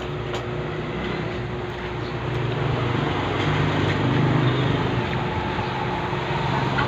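Road traffic noise, with a motor vehicle's engine growing louder about halfway through and then easing off.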